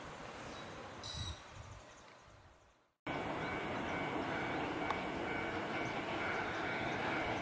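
Faint outdoor ambience with a short high chirp about a second in, fading out; then, after a cut about three seconds in, a Kotoden suburban electric train running past, a steady rumble with a faint high tone above it.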